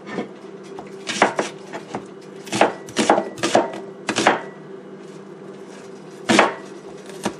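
Kitchen knife chopping an onion on a cutting board: several sharp, irregular chops bunched in the first half, then a couple more near the end.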